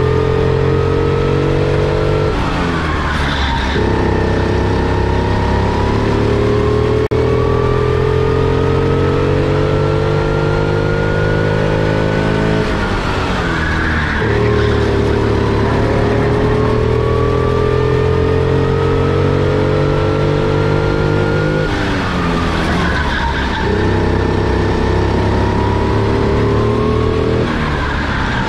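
Onboard sound of a four-stroke rental kart engine at full throttle, its pitch climbing slowly along the straights and falling sharply four times as the driver lifts for corners. Brief tyre squeal in the corners.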